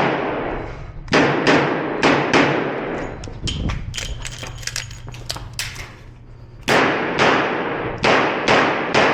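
Echoing .38 Special revolver shots from a Korth Mongoose, fired in quick succession: about five in the first two and a half seconds. Then comes a pause of about four seconds with light clicks and clatter, typical of a revolver reload. About five more shots follow from about two-thirds of the way in.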